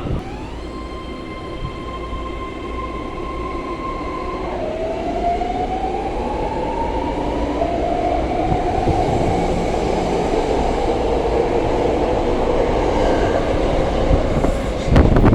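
Legacy-fleet BART train accelerating, its traction motors and propulsion gear giving a whine that climbs in pitch in steps over a rumble of wheels on rail that slowly grows louder.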